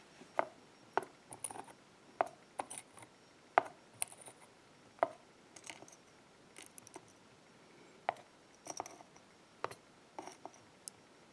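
Irregular small metallic clicks and taps as tiny steel springs are pulled from a pin-tumbler lock cylinder's chambers with tweezers and set down. The clicks come a second or so apart, some sharper than others.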